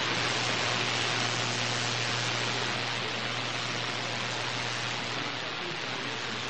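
Steady shortwave radio static and hiss from a Retekess V115 receiver tuned to 13710 kHz, with a low hum underneath.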